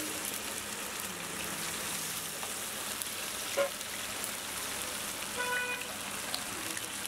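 Battered chicken pakodi pieces deep-frying in a large kadai of hot oil: a steady crackling sizzle. A single sharp knock about three and a half seconds in.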